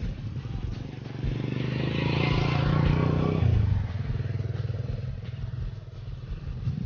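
Motorcycle engine passing close by: it grows louder over the first few seconds, drops in pitch about three and a half seconds in, then fades.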